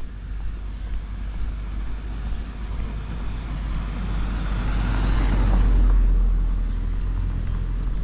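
A vehicle passing by, its noise swelling to a peak about five to six seconds in and then fading, over a steady low rumble.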